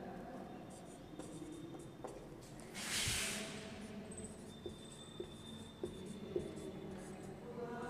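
Marker pen writing on a whiteboard, faint: light ticks of the tip on the board with a thin squeak in the second half. About three seconds in there is a short hissing rush of noise, the loudest sound.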